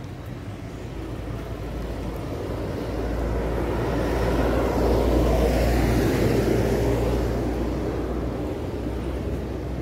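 Engine and road noise of a passing vehicle, a broad rumble that swells to its loudest about five or six seconds in and then fades.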